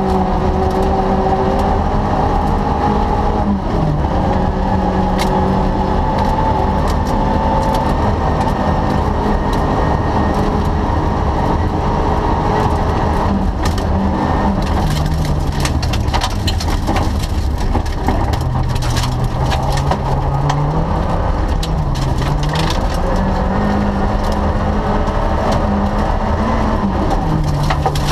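Rally car engine heard from inside the cabin, running hard on a gravel stage; its note holds high, then dips and climbs back several times in the second half as the car slows for corners and accelerates out. Gravel and stones clatter against the underbody throughout.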